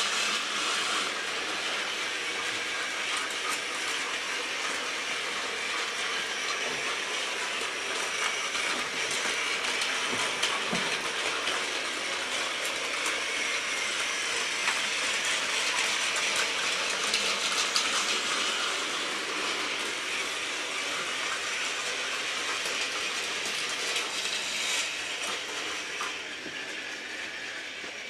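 Battery-powered Plarail toy trains running on plastic track: a steady motor whir with fine clicking from the wheels on the track. It gets somewhat quieter near the end.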